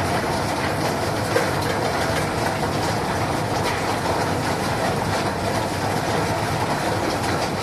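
Machinery of a chicken-feet processing line running: stainless-steel drum machines and a wet plastic conveyor belt make a steady mechanical din. A single knock comes about a second and a half in.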